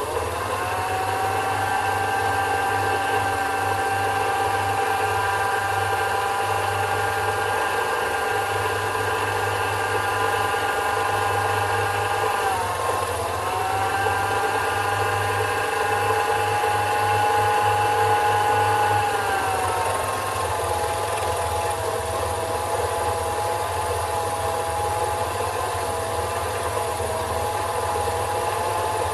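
Sherline micro lathe running and turning a large-diameter mild steel workpiece with a carbide insert tool: a steady motor whine with a hum under it. The pitch sags briefly and recovers about halfway through, then drops to a lower steady pitch about two-thirds in.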